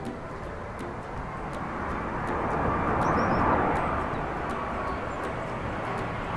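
Twin-engine jet airliner passing overhead: a steady engine rumble that swells to its loudest about three seconds in, then eases off.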